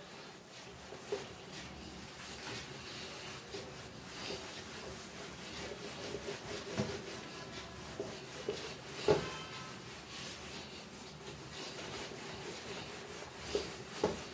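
Cloth duster rubbing across a whiteboard, wiping off marker writing in long strokes, with a few soft knocks against the board, the loudest about nine seconds in.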